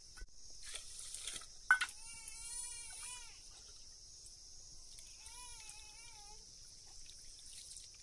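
A goat bleating twice, two long wavering calls a couple of seconds apart, with a sharp knock just before the first.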